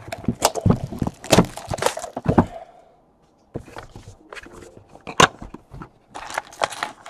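Cardboard trading-card hobby box being opened and handled: irregular rustling, scraping and tapping of the box and the foil packs being pulled out. There is a brief pause about three seconds in and a sharp knock about five seconds in.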